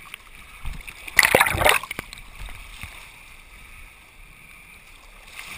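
Sea water splashing and sloshing around a camera at the waterline, with one louder splash about a second in.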